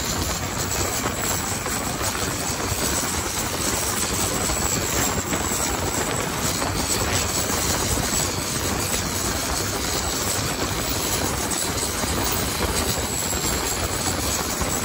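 Racing longtail boat's engine running flat out at speed, heard from aboard the boat as one steady, loud noise mixed with rushing wind and water spray.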